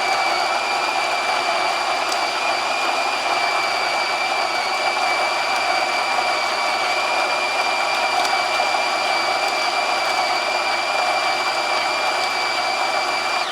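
Electric coffee grinder grinding a dose of espresso beans: a steady motor whine with a high pitched tone over the grinding noise, which cuts off suddenly at the end.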